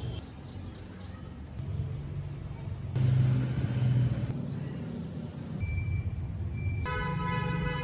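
Car engine sound effect: a low engine rumble cut together from several short pieces, changing abruptly every second or so. A steady pitched tone sounds for about a second near the end.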